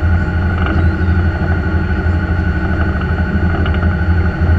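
Fishing boat's engines running steadily underway, a deep pulsing drone, with the rush of the wake water behind it.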